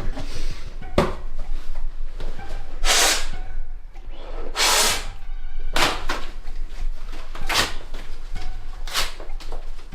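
A Foley sound effect for breaking bones: a run of about six cracking, snapping noises at uneven intervals, some short and sharp, others drawn out for about half a second.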